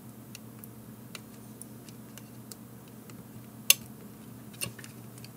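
Small plastic clicks and taps as fingers work a battery's tiny wire connector into its socket on a GPS unit's circuit board, with one sharper click about two-thirds of the way in as the plug seats.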